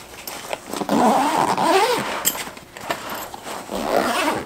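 Zipper on a fabric soft rifle case being run shut along the top, a rasping pull with uneven speed, amid handling of the case.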